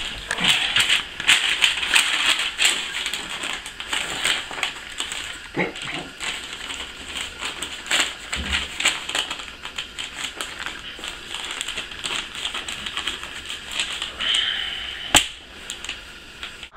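Close rustling and crinkling of bedding and paper being handled, with many small clicks and taps throughout. About 14 seconds in there is a short hiss, followed by one sharp click, the loudest sound.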